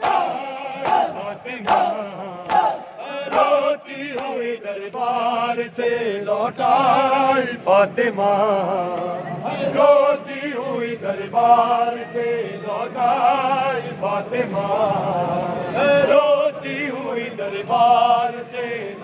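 Group of men chanting a nauha, a Shia mourning lament, in unison, with sharp chest-beating (matam) strikes most distinct in the first few seconds.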